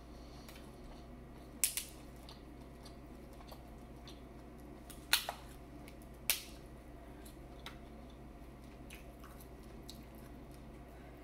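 Close-up eating sounds from a seafood boil of crab, shrimp and corn: chewing with a handful of sharp clicks and cracks. The loudest come about two, five and six seconds in.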